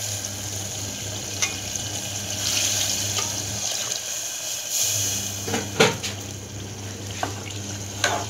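Water poured in a stream into a pressure cooker onto hot fried masala, splashing and sizzling as it hits the pan, loudest in the middle of the pour. A sharp clink against the metal pot comes a little after halfway.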